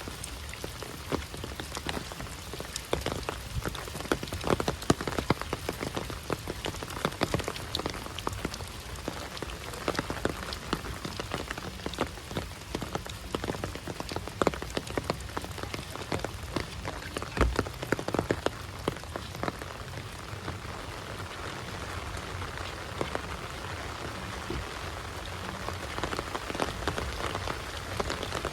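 Heavy rain falling steadily, with many sharp individual drop impacts close by over an even rushing hiss.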